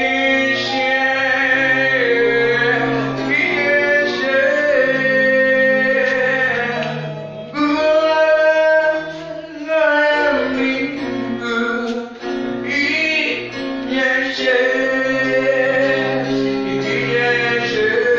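Worship song sung by a female voice with male voices, over guitar accompaniment, in long held notes.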